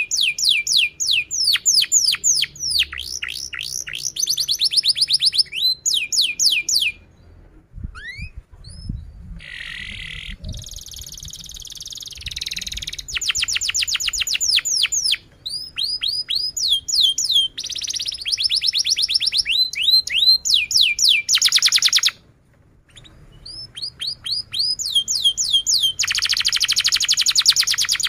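Domestic canary singing in full, continuous song: long trills, each made of fast, evenly repeated downward-sweeping high notes, changing to a buzzier rolling trill partway through. The song breaks off briefly about seven seconds in and again near the 22-second mark, and a few soft low thumps come in the first break.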